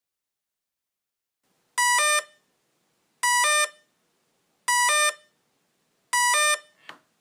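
Hitec Energy Sport brushless ESC programming tones: a short group of quick electronic beeps at several pitches, repeated four times about a second and a half apart. It is the tone that signals the 'Cut Power' option of the low-voltage cut-off type setting. There is a faint click near the end.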